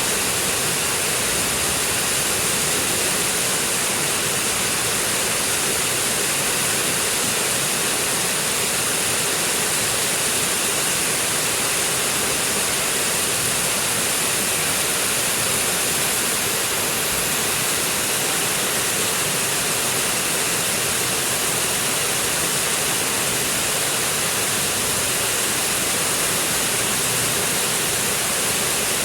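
Forest stream flowing: a steady, unbroken rush of water with a lot of hiss, unchanging throughout.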